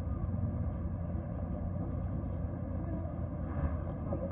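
A steady low rumble of outdoor street noise, with faint, indistinct crowd voices coming in near the end.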